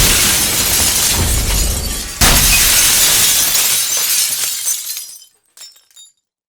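Glass smashing twice: a loud crash just before the start, then a second crash about two seconds in, each followed by shards showering and settling, with a few last tinkles near the end.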